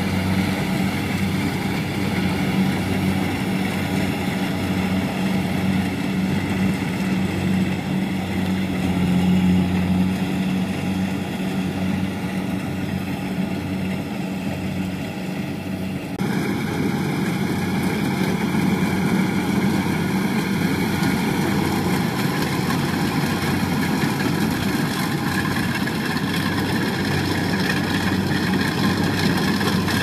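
Kubota DC70 combine harvester's diesel engine running steadily while it cuts rice, a low even hum with the machine's threshing clatter. The sound changes suddenly about halfway through, becoming noisier and less humming.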